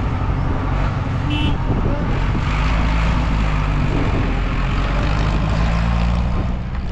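An engine running steadily, a loud low hum.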